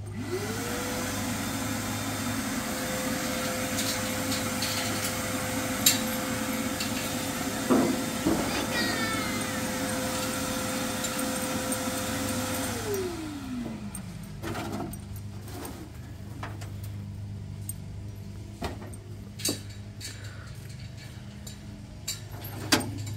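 A shop vacuum runs with a steady high motor whine and rushing air, is switched off a little over halfway through and winds down in pitch. After that come scattered knocks and rattles.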